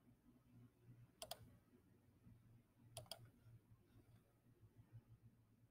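Two faint computer mouse clicks, about a second in and again about three seconds in, each a quick double tick of button press and release, over a faint low hum.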